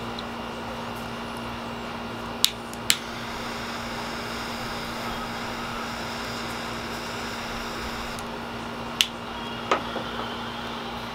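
A lighter relighting a cigar. It clicks sharply twice a couple of seconds in, its flame hisses for about five seconds, and it clicks twice more near the end. A steady low hum sits under it all.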